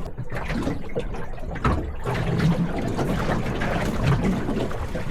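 Water lapping and sloshing against a boat's hull, with a knock about one and a half seconds in.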